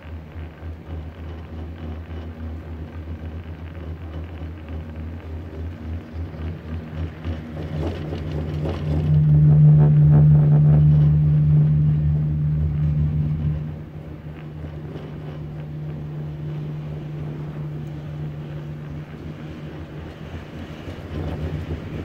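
Ride in an open-air Doppelmayr cabriolet gondola cabin: the moving lift gives a steady low hum and rumble, with wind on the microphone. The hum swells louder for about five seconds in the middle, then settles back.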